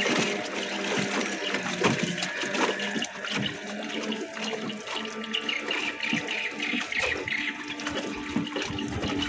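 Rushing, splashing water over the steady hum of small 15 hp outboard motors on racing long boats.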